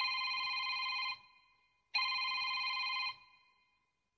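Telephone ringing: two rings, each a little over a second long and about two seconds apart.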